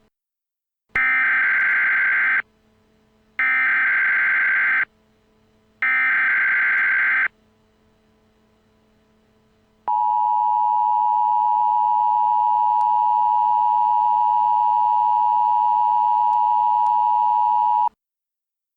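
Emergency Alert System header: three short bursts of data tones about a second apart, followed by the steady two-tone attention signal held for about eight seconds, announcing a new alert.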